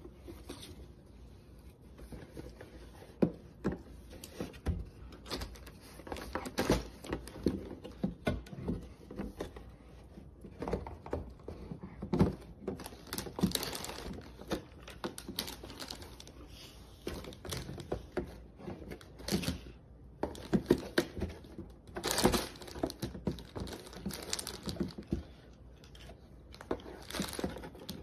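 A dog mouthing and chewing at a cardboard LEGO box: irregular crinkling and scraping with many sharp taps and clicks of teeth on the cardboard.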